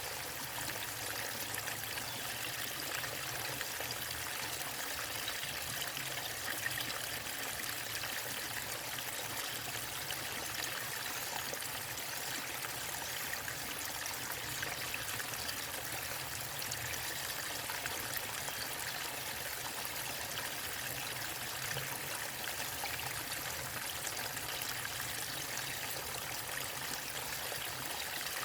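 A waterfall on a stream: water falling and splashing in an unbroken, even rush, heavy in the high, hissing end.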